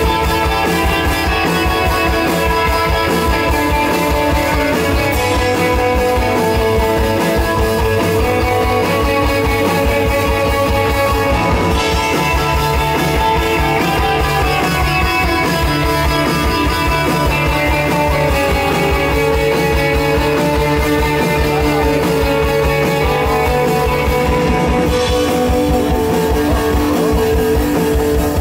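Live psychedelic rock band playing fuzz-style rock: distorted electric guitars holding long notes over bass and a steady, driving drum-kit beat, heard loud through an open-air PA.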